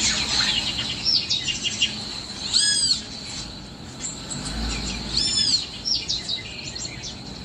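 Birds chirping: many quick high chirps, with two louder arched calls about two and a half and five seconds in, over a steady high-pitched tone.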